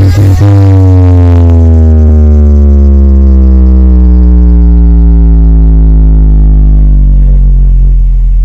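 A large outdoor sound system's speaker stacks playing one very loud, deep bass drone that glides slowly downward in pitch for several seconds, its upper overtones thinning out near the end.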